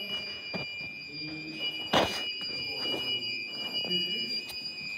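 Fire alarm sounder giving a steady high-pitched tone while the system is in alarm during detector testing. One note of the tone drops out briefly about a second in and again near the end. A sharp knock about two seconds in is the loudest moment, with low voices underneath.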